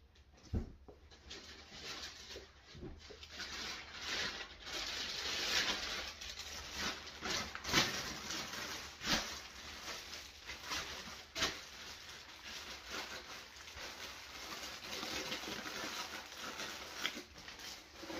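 Plastic packaging rustling and crinkling as new pillows are pulled out of their bags and handled, with a few short thuds.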